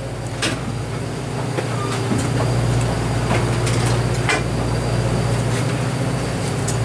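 A fishing boat's diesel engine running with a steady low hum that grows a little louder about two seconds in, with a few scattered clicks and knocks over it.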